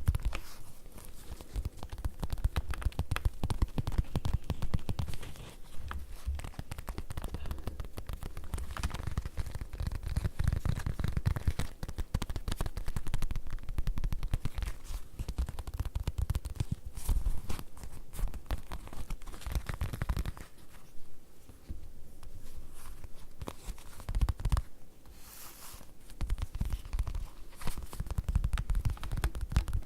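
Fast, continuous tapping on leather, dense taps with a deep, dull thud, easing off to a softer patter for a few seconds about two-thirds of the way through before picking up again.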